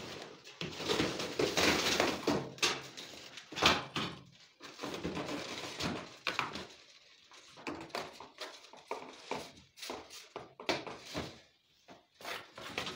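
Electrical cables being drawn through conduit with a fishing tape and handled at a wall box: irregular scraping, rustling and clicks, busiest in the first few seconds.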